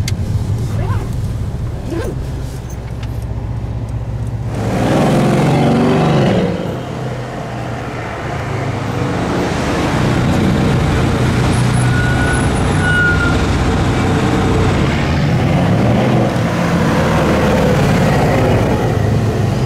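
Mercedes-AMG C63 S twin-turbo V8, RennTech-tuned, driving: a low steady engine note, then about four and a half seconds in a sharp rise in revs under hard acceleration for nearly two seconds, a drop as the throttle lifts, and then sustained running under load with revs rising and falling.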